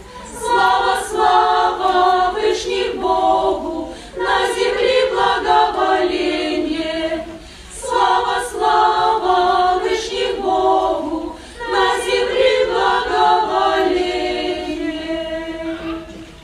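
Choir singing unaccompanied in several voices, in sung phrases of about three to four seconds with short breaks for breath between them.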